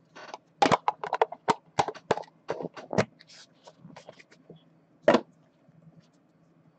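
Trading cards and their packaging being handled on a desk: a quick run of clicks and crinkles over the first three seconds, then one louder click about five seconds in.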